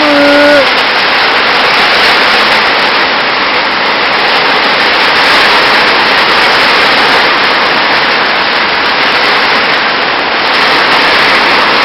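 Heavy rain falling, a loud, steady hiss with no letup.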